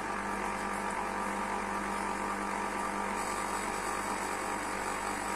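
Electric citrus juicer's motor running with a steady hum as a lemon half is held down on the spinning reamer under the press lever.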